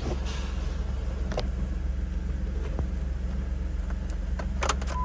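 2010 Jeep Wrangler's 3.8-litre V6 idling steadily, heard from the cab, with a few sharp clicks near the end.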